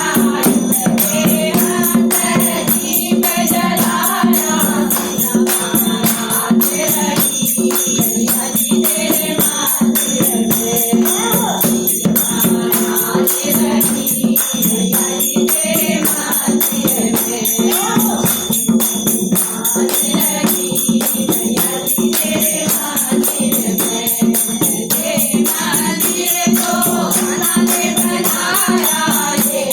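Group devotional singing over a steady held drone, with rattling percussion throughout.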